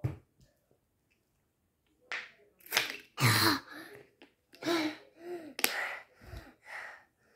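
A girl gasping and blowing out hard in a run of breathy, partly voiced exhales, reacting to the burn of very hot sauce. A single short thump comes at the very start.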